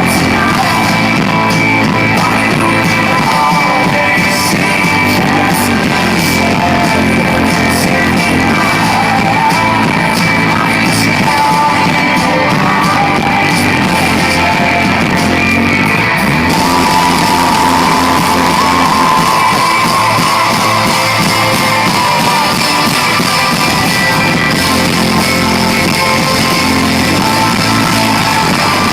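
Live rock band playing through a large concert sound system, loud and continuous, with guitars, drums and singing; the music shifts about 16 seconds in.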